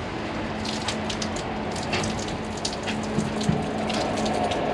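Rain falling, with many scattered drop ticks, over a steady low hum.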